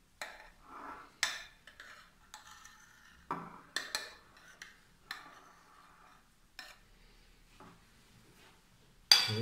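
Metal spoon scraping and clicking against a square ceramic dish as a soft cream layer is spread, in short irregular strokes. A sharp knock just before the end is the loudest sound.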